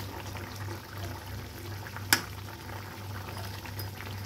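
Fish curry sauce simmering and bubbling steadily in a pan on a gas stove, with one sharp tap about two seconds in.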